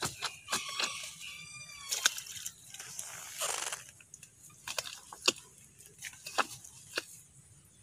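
Digging out a durian seedling's soil ball by hand and tool: scattered sharp knocks, crunches and a short scrape of soil. A rooster crows briefly in the first two seconds.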